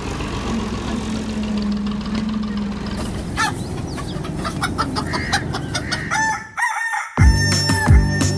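A steady low hum, then from about three seconds in chickens clucking and a rooster crowing. About seven seconds in a music track with a heavy repeating bass beat starts.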